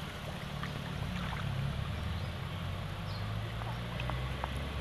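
A low, steady motor hum whose pitch shifts slightly about a second in, with faint short ticks scattered above it.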